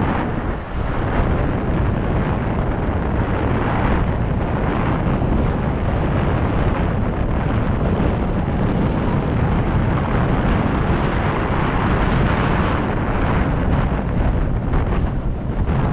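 Wind buffeting the microphone of a camera on a moving bike, a steady, loud rush of noise with no engine tone.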